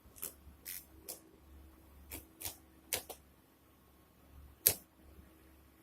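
A series of sharp clicks or taps at irregular intervals, about eight in all, the loudest about two thirds of the way through, over a faint steady hum.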